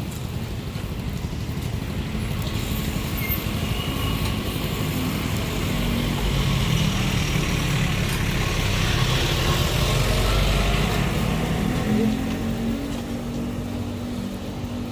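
Road traffic: a motor vehicle's engine and tyres going by, growing louder to a peak about ten seconds in and then fading.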